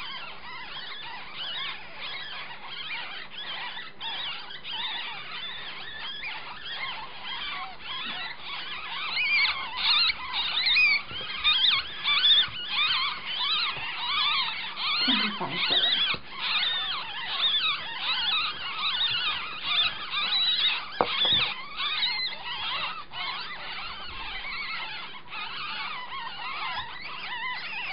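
Nine-day-old kits squeaking: a dense stream of high, rapidly wavering squeaks that grows louder for several seconds in the middle, then eases.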